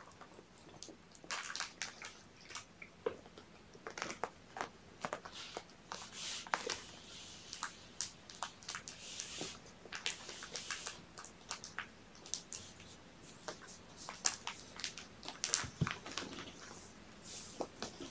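Irregular soft crunches, clicks and rustles from young kittens moving and crunching about on a blanket.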